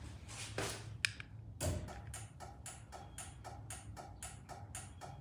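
Garage door opener clicking rapidly and evenly, about four clicks a second, as it refuses to close with its photo-eye safety sensor blocked; a couple of knocks come just before the clicking starts.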